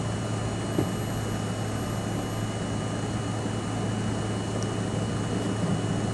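New York City Subway C train running into a station, heard from inside the front car: a steady rumble of wheels and running gear over a constant low hum and a thin steady high whine. One short click about a second in.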